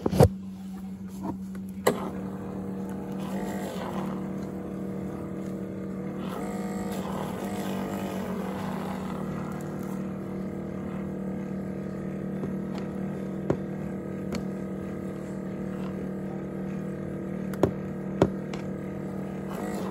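Handheld battery milk frother whirring steadily as it whips creamer in a cup, its pitch wavering for a few seconds in the middle, with a few light clicks and knocks.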